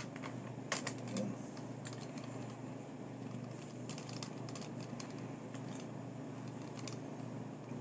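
Scattered light clicks and taps over a steady low hum, the loudest cluster about a second in.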